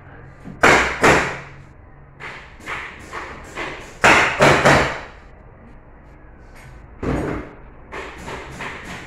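Over a dozen irregular sharp knocks and thuds of work on a treated-pine box-bed frame, as wooden pieces are struck and fastened together. The loudest come as two knocks about a second in and three in quick succession about four seconds in.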